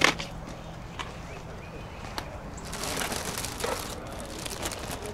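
Plastic zip-top bag of toys being handled, crinkling and crackling from about halfway through, after a sharp click at the start and a few light ticks.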